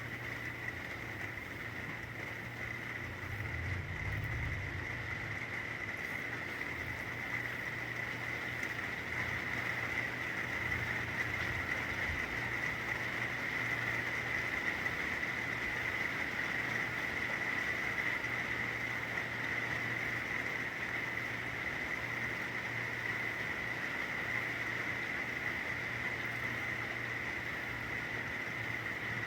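Steady rain falling, an even hiss throughout, with a low steady hum underneath.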